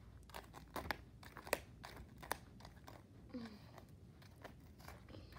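Plastic hairbrush strokes through a doll's long synthetic hair: irregular scratchy brushing with sharp clicks where the bristles snag and snap free, the loudest a little after one and a half seconds.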